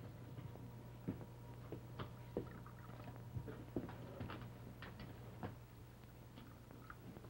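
Faint, irregular clinks and knocks of coffee cups and dishes on a kitchen table, over a steady low hum.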